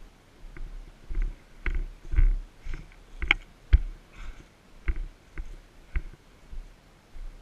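Footsteps of the camera wearer crunching along a trail, about two steps a second, each one also a dull thud through the body-mounted camera.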